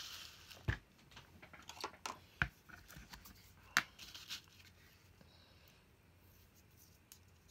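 Paper envelopes and washi tape rustling as they are handled on a cutting mat, with a few sharp taps as small bottles are set down on the mat, the loudest just under four seconds in.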